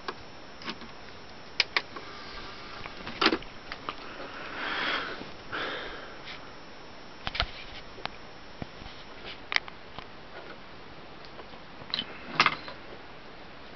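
Scattered sharp clicks and knocks of handling, the loudest a little after three seconds in and again near the end. Two short breathy sounds come about five seconds in.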